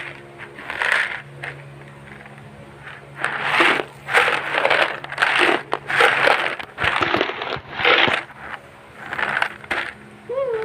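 Crunching and crackling of chocolate biscuits being eaten close to the microphone, in irregular bursts.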